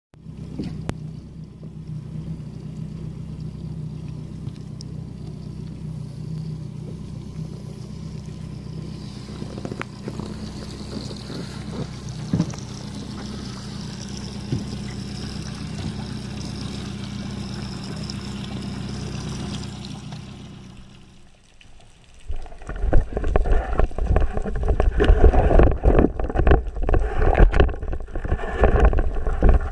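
Steady motorboat engine drone, a low hum with its overtones. About 21 seconds in it fades and gives way to loud, choppy splashing and sloshing water right at the microphone.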